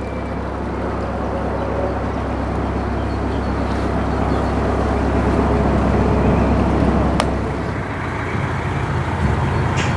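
Narrowboat's diesel engine running steadily while cruising, a low rumble that changes pitch about eight seconds in, just after a single sharp click.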